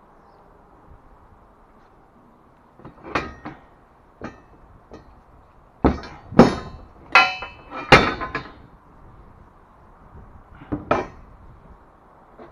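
Steel HAKI scaffold parts clanking and knocking: a dozen or so irregular, sharp metal strikes that ring briefly. They come in scattered ones and twos at first, then in a loud cluster of five or six strikes past the middle, and a last pair near the end.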